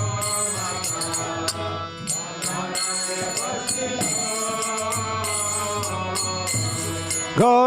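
Bengali devotional song sung as kirtan: a group of voices sings a response over a steady low drone with high jingling cymbals. A strong solo voice comes in just before the end.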